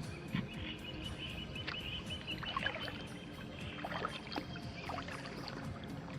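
Kayak paddle strokes in calm water, the blades dipping and dripping, with a thin high steady tone for about three seconds in the first half.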